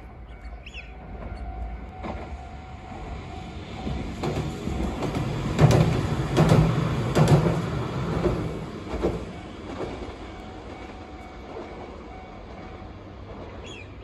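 A Hiroden 5000-series Green Mover low-floor tram crossing a rail bridge: its running noise builds, peaks halfway through with several sharp wheel clacks, then fades away.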